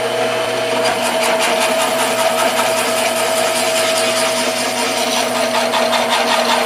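Speedway Series 9-speed, 1 HP drill press running steadily, its motor and drive humming, while a twist drill bit cuts a hole into a brass ring, with a rough scratchy cutting noise throughout.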